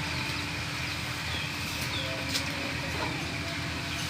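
Short, falling chirps of small birds, repeated irregularly, over a steady background hum, with a single click about two and a half seconds in.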